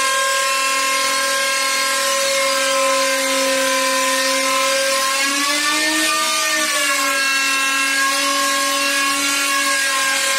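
Handheld electric router cutting a Corian solid-surface countertop: a steady high motor whine over a cutting hiss. The pitch rises briefly about halfway through and then settles back as the load on the bit changes.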